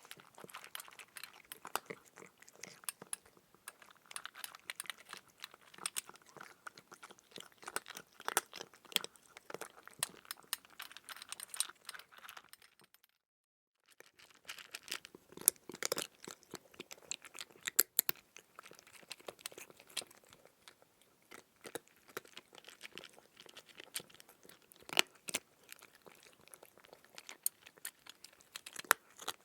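Crunching, chewing sound effect: a dense, irregular run of sharp crunches and crackles, cut off by about a second of silence some thirteen seconds in, then resuming.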